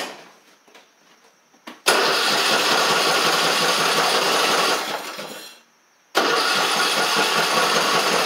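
Electric starter cranking the newly swapped engine of an MTD Craftsman LT1500 lawn tractor, in two tries of about three seconds each with a short pause between. The engine does not catch on either try.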